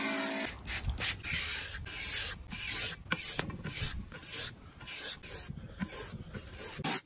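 Cleaver blade stroked back and forth on a flat sharpening stone by hand, a steady run of scraping strokes about three a second, as the edge is honed.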